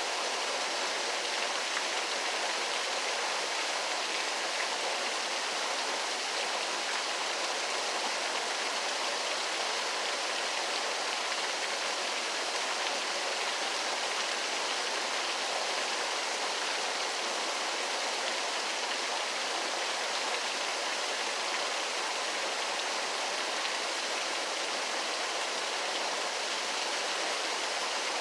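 Waterfall: a steady, unbroken rush of falling water, an even hiss with little deep rumble.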